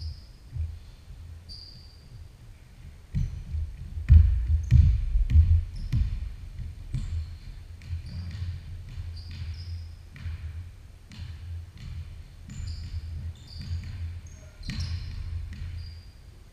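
A basketball bouncing and being dribbled on a hardwood gym floor during a game, with sneakers squeaking as players cut and run. The bounces come loudest in a quick run about four to six seconds in.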